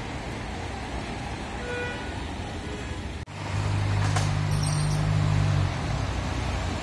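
Street traffic noise. After a brief break about three seconds in, a nearby motor vehicle's engine hums low and loud for about two seconds, then eases back into the traffic noise.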